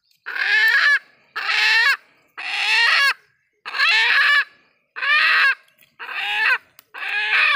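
An animal crying out loudly again and again, about one cry a second, the pitch of each cry bending down at its end.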